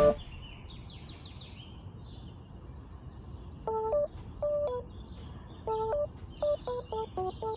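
Birds calling: a quick run of descending high chirps about a second in, then from about halfway a string of short calls that jump between a few pitches.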